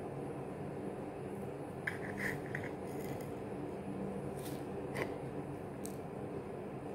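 Metal fork and knife clinking and scraping against a plate while cutting a pancake: a quick cluster of light clinks about two seconds in and single clinks around four and a half, five and six seconds. A steady low hum sits underneath.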